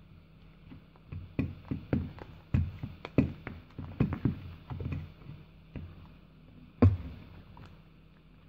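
Irregular knocks and taps, about a dozen in a few seconds and then one louder knock near the end, as hands handle a jumper cable and a roll of electrical tape against a wooden worktable.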